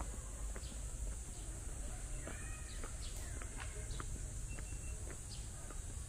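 Forest ambience: a steady high insect drone with scattered short bird chirps over it.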